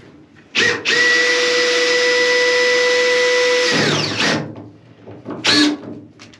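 Cordless drill boring into a chequer-plate floor panel and the beam beneath: a short burst of the motor, then about three seconds of steady running at one pitch that winds down, and another short burst near the end.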